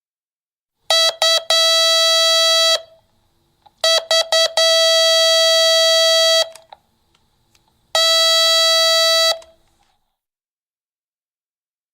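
Door intercom buzzer sounding a harsh electronic buzz three times. The first two times it opens with a few quick short buzzes and then holds for one to two seconds. The third is a single held buzz of about a second and a half.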